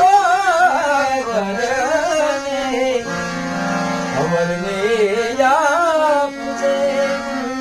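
A man singing long, ornamented wordless phrases of a Gujarati bhajan over the steady held reed notes of a harmonium. The voice sings two such phrases, with a gap of about a second, about three seconds in, where only the harmonium sounds.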